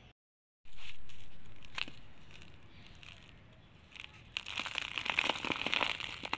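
Dry red brick sand crushed between the fingers, with the grit pattering onto a piece of cardboard: a dense, gritty crackling from about four seconds in. Near the start there is a brief cut to silence.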